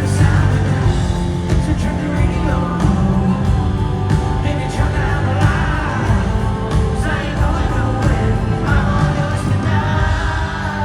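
Pop-country song playing: a singer over a full band with a steady bass.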